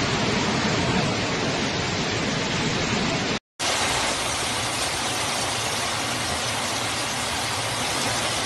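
Steady rushing noise of a heavy downpour and floodwater in the street. It breaks off briefly about three and a half seconds in, then goes on.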